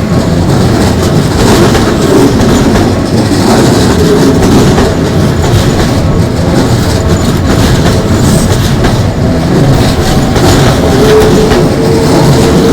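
Toei 5300-series electric commuter train running past close by, with a steady rumble and wheels clicking over rail joints throughout.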